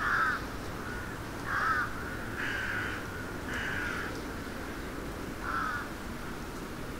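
Crows cawing: five separate calls spread over several seconds, over a steady low background rumble.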